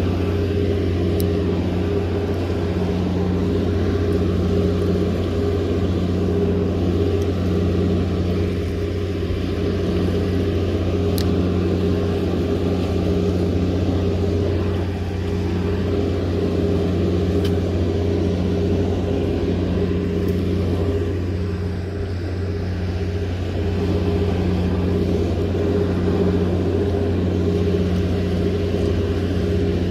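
A steady low mechanical drone with a faint pulsing in its higher tones runs over the rush of churning water, dipping slightly about two-thirds of the way through.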